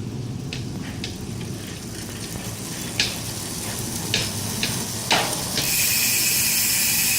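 Ragusa XM500 bicycle rear hub freewheeling: a few scattered sharp clicks, then from about five and a half seconds in a loud, continuous high buzz of the freehub ratchet.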